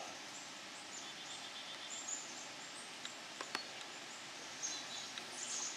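Quiet woodland ambience: scattered high bird chirps over a steady background hiss, a short rapid trill about a second in, and two sharp clicks about three and a half seconds in.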